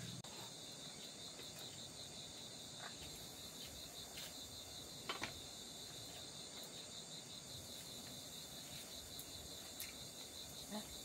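Faint, steady high-pitched pulsing trill of insects, with a few brief sharp clicks; the loudest click comes about five seconds in.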